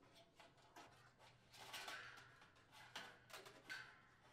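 Faint handling noises: light rustles and a few soft clicks of wires and the fan guard and motor assembly being moved about, busiest around the middle.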